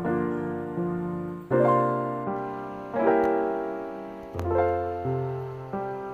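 Slow background piano music: chords struck about every second and a half, each left to ring and fade, with lighter notes in between.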